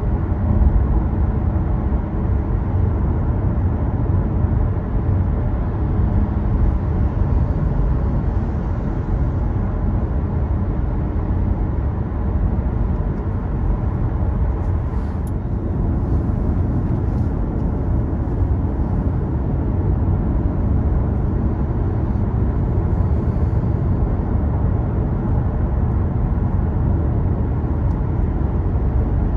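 A car driving along at a steady pace: a constant low rumble of engine and tyre road noise.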